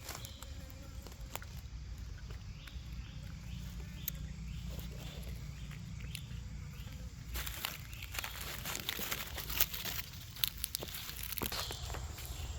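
Rustling and crackling that begins about seven seconds in, over a steady low rumble.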